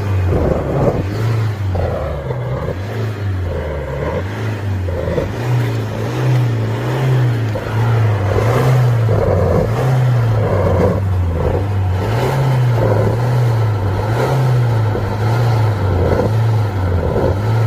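Range Rover 2.0 diesel engine revved up and down over and over in quick, even blips, with a rush of exhaust noise on each rev. The revving burns out the oil left in the exhaust after a turbo failure.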